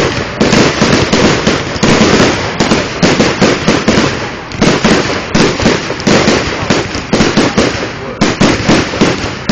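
Aerial fireworks going off in rapid succession, a near-continuous volley of overlapping bangs and crackles with only brief lulls.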